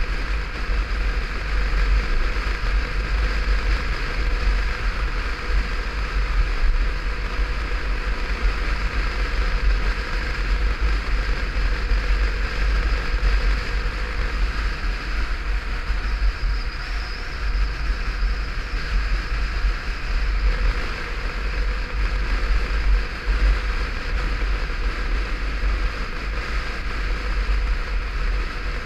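Wind rushing and buffeting over a helmet-mounted camera on a moving motorcycle, with the bike's engine running steadily underneath at a constant cruising speed.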